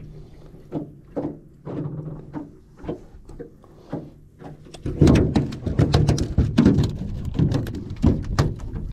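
A series of knocks and thumps on the boat, sparse at first, then a rapid, loud flurry of them from about five seconds in.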